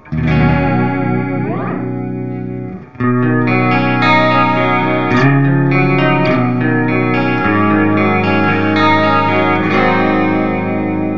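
Clean electric guitar chords played through an Earthquaker Devices Space Spiral modulation delay pedal, set to a short delay time for a chorus-like, wavering effect. The sound drops out briefly and a new chord is struck about three seconds in, with further chord changes after.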